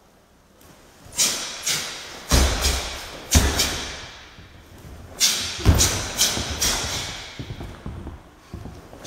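A karateka performing the kata Enpi: the cotton gi snaps sharply with each fast strike and block, and bare feet thud heavily onto the padded mat on the stances and stamps. The hall rings after each sound. The first second is quiet, and the snaps begin about a second in. The heaviest thuds come at about two and a half, three and a half, and six seconds in.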